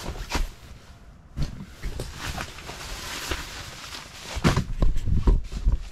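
Rustling of nylon fabric and a series of knocks and low thumps as camping gear, a sleeping pad's roll-top stuff sack among it, is picked up and handled. The thumps come heavier and closer together near the end.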